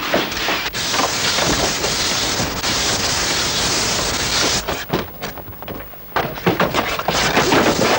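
Clubs smashing things up: a dense crashing clatter for a few seconds, then a quick run of separate blows and knocks.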